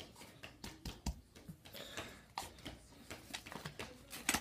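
Scattered plastic clicks and knocks from a toy dart-blaster revolver being loaded, darts pushed into its cylinder, with a sharper click about a second in and a few quick clicks near the end.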